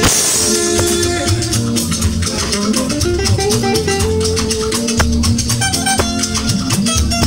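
Live band music played through a PA: electric guitar, keyboard and drum kit over a steady, sustained bass line, with busy high percussion ticking.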